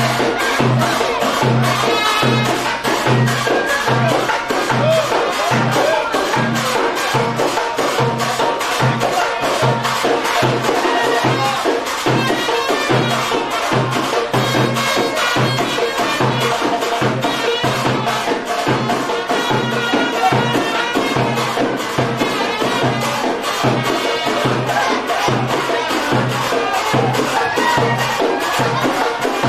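Loud live-band music with a fast, steady hand-percussion beat under a dense instrumental melody, with no pauses.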